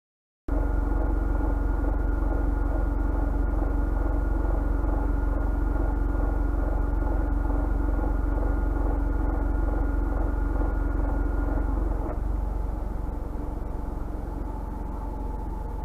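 Abnormal droning hum from a Honda S660's air-conditioning system under the footrest while the AC runs, a steady two-tone drone over the engine's running sound. The owner blames the air-conditioning pipes and their clamping, and the noise persisted after a warranty compressor replacement. About twelve seconds in the drone stops and the level drops a little, and a different, higher steady tone comes in near the end.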